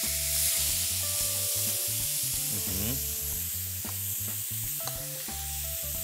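Salmon frying in a hot pan, a steady sizzle.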